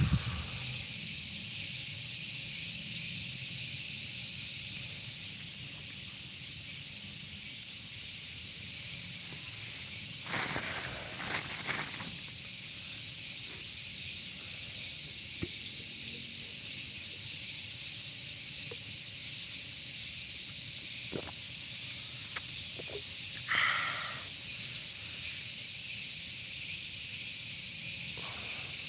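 Steady high-pitched chirring of insects in a field, with a few brief rustles or knocks about a third of the way in and again past the three-quarter mark; no weeding machine is running.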